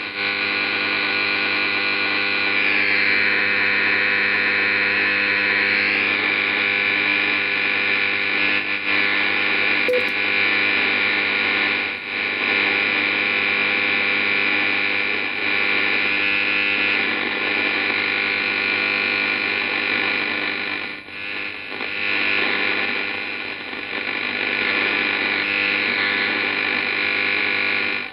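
Amateur radio transceiver's speaker in AM mode giving out steady interference noise, a rough buzzing hiss laced with many steady tones, as the receiver is tuned down from about 38 to 26 MHz. The noise is wideband man-made interference that covers the bands from 160 m up to 6 m.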